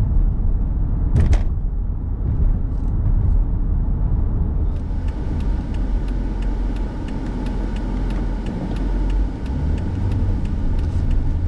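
Car being driven, heard from inside the cabin: a steady low rumble of engine and road. There is one sharp click about a second in, and a faint regular ticking of about three a second from about five seconds in.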